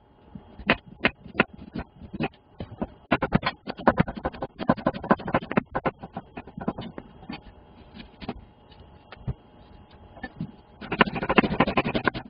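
Kitchen knife cutting carrot into thin strips and then slicing onion on a wooden cutting board: sharp taps of the blade hitting the board in uneven runs of quick strokes, with a fast, dense run near the end.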